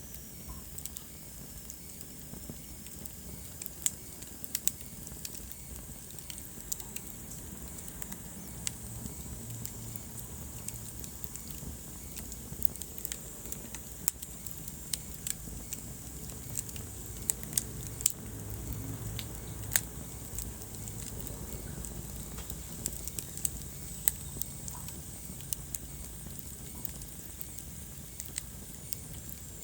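Wood fire burning in a fireplace: irregular sharp crackles and pops over a low, steady rumble of flame.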